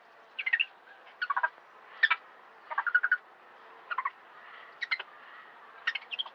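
Monkey calling in short, rapid chattering bursts, about seven in a row, roughly one a second, each a quick string of high pulsed notes.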